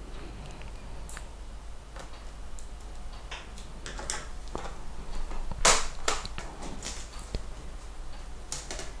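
Small clicks and taps of a screwdriver working the screws of the plastic RAM access cover on the underside of a Sony Vaio VGN-NR32L laptop, then the cover being lifted off, with two sharper plastic clacks a little past halfway.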